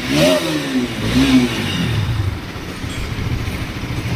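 Bajaj Pulsar RS 200's single-cylinder, liquid-cooled engine being blipped on the throttle twice, then settling back to a steady idle about two seconds in.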